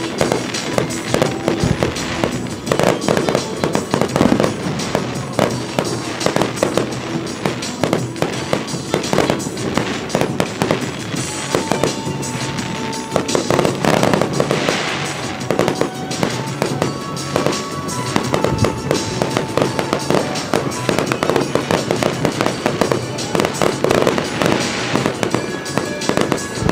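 Fireworks display: aerial shells bursting in quick succession with dense bangs and crackling throughout, over music.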